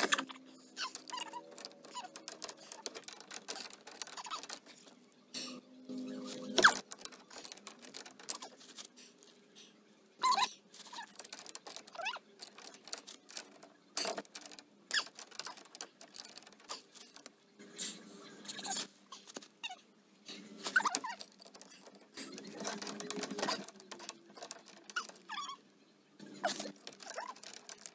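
Steel pipe wrenches clinking, knocking and scraping against threaded galvanized pipe fittings in irregular clicks, while the fittings are worked on to stop a leak in the hot water line. The sharpest knock comes about six and a half seconds in.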